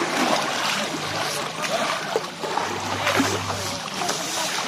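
River water splashing and sloshing as people pour buckets of water over an elephant lying in the shallows and rub it down.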